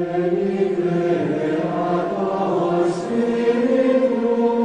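Background choral music: voices singing long held notes in a chant-like style, the chord changing about three seconds in.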